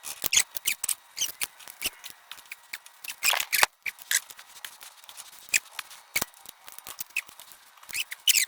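Metal hand tools clicking and scraping irregularly against metal as the PTO lever on a Farmall 450 tractor is worked and pried at, with a louder flurry of clicks about three seconds in and again near the end.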